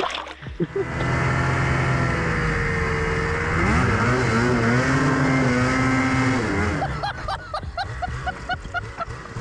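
Snowmobile engine revving hard as the sled churns through deep snow, digging itself a pit; the pitch climbs about four seconds in and holds, then the engine sound drops away about seven seconds in.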